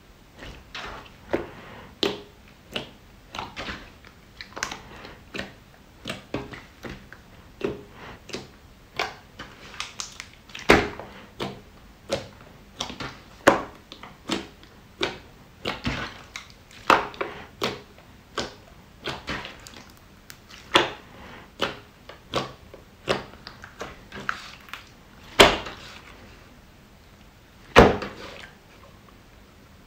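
Hands squishing and pressing a large blob of glossy slime, making irregular wet clicks and pops about one or two a second, a few of them much louder.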